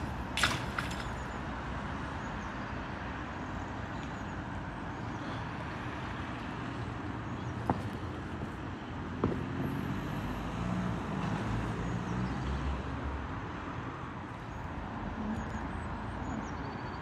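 Steady road traffic noise with a car engine idling, and a few sharp clicks, the loudest about half a second in.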